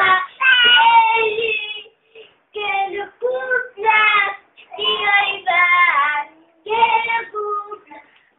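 A young girl singing in a high voice, in short phrases broken by brief pauses.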